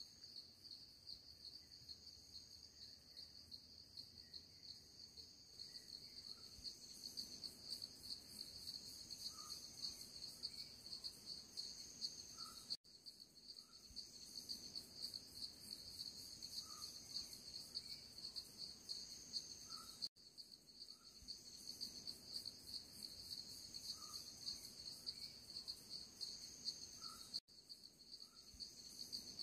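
Faint, steady chorus of insects trilling at a high pitch with a fast pulse, and a higher layer that swells and fades every few seconds; a faint short call at lower pitch comes now and then. The sound drops out briefly three times.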